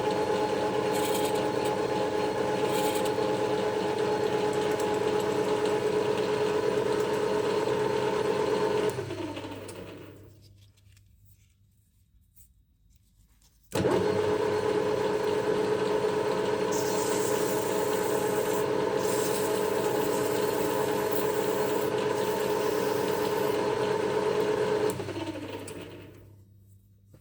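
A workshop machine's electric motor running with a steady hum, then switched off and spinning down with falling pitch. After a few seconds' pause it starts again abruptly, runs steadily with some hissing from the cut partway through, and spins down again near the end.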